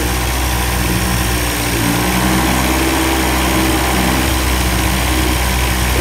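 A 1990s Evinrude 30 hp two-cylinder two-stroke outboard, cowling off, running steadily with no hiccups, popping or sneezing: the lean sneeze is cured after the carburetor and fuel-leak repairs.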